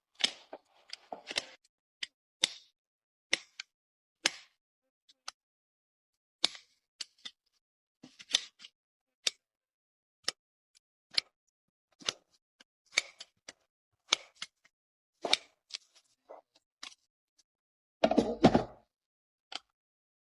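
Hoof nippers cutting through an overgrown horse hoof: a run of sharp, irregular snips, one or two a second, with a longer, louder scraping sound near the end.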